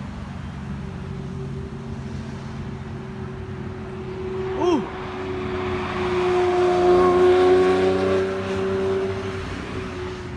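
Sports cars driving past with a steady engine drone. About halfway through comes one short rev blip, then a Lamborghini Murciélago's V12 builds loud as it drives through and fades near the end.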